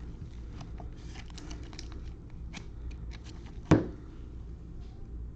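Trading cards and pack wrappers being handled: light rustling with scattered small clicks and ticks. A little past halfway comes one brief, louder sound that falls quickly in pitch.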